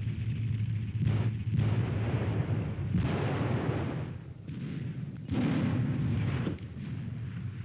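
Heavy gunfire and explosions of a tank battle: several blasts a second or two apart, each trailing off in a low rumble.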